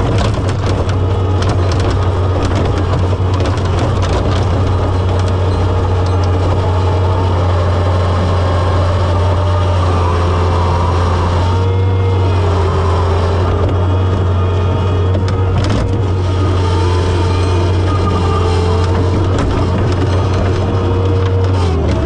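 John Deere 675B skid steer engine running hard and steady, its pitch wavering slightly as the load changes, with a few knocks and crunches as the bucket breaks frozen manure and ice.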